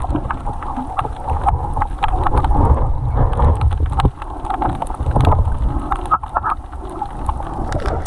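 Underwater noise picked up by a camera held under the sea: a muffled low rumble of moving water with many scattered clicks and crackles.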